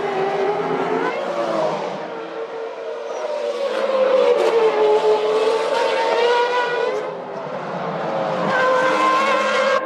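Formula One cars' 3-litre V10 engines at racing speed, a high, many-toned engine note whose pitch rises and falls as cars go past and shift, loudest about four to six seconds in.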